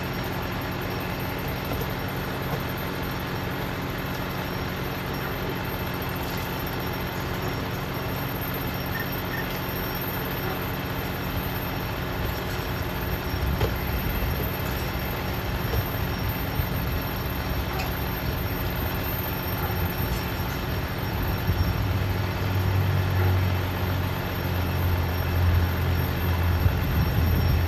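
Fire engine running at a steady idle, a constant low mechanical drone and hum that grows louder and deeper in the last several seconds.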